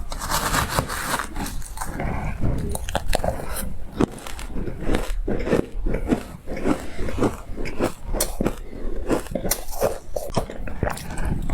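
Close-miked bites into frozen green matcha ice: a run of quick, sharp, powdery crunches and crackles as the ice breaks between the teeth.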